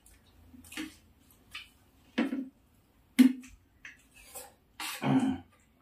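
People eating with spoons from plates: a scatter of short mouth and cutlery sounds such as lip smacks, chewing and spoon clicks. About half a dozen separate sounds, the sharpest a click a little past three seconds in.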